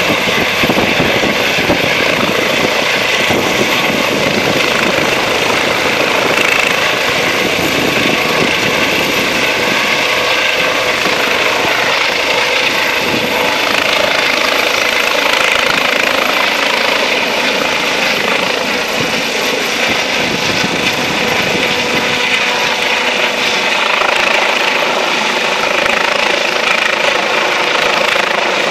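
Eurocopter EC135 helicopter lifting off and climbing away: steady turbine and rotor noise with a thin steady whine, the low rotor rumble thinning in the second half as it gains height.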